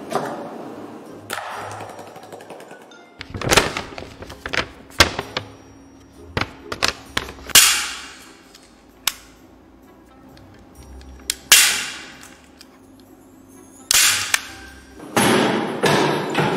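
A series of irregular knocks and thuds, about fifteen sharp hits of varying strength, some trailing off in a short hiss.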